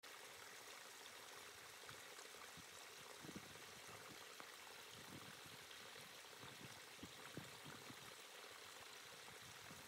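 Near silence: faint steady outdoor hiss, with a few soft low bumps.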